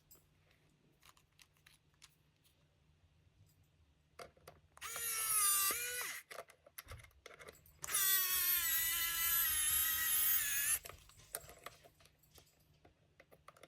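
Small electric screwdriver whirring in two runs, a short one and then a longer one of about three seconds whose pitch sags slightly, driving in screws while the wheels are fitted to a model train car. Light clicks of handled small parts come in between.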